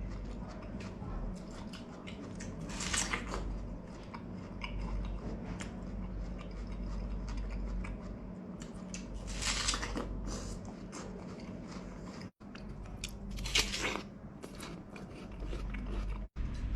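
Person biting into and chewing crisp, juicy Hami melon, with three loud crunchy bites about three, ten and fourteen seconds in, and quieter chewing between them over a steady low hum.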